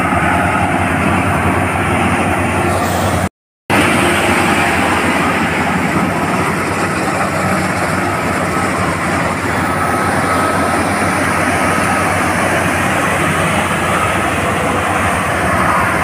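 Paddy combine harvester running steadily while cutting and threshing rice: a loud, continuous mechanical din of engine and threshing machinery. The sound cuts out completely for a moment about three seconds in.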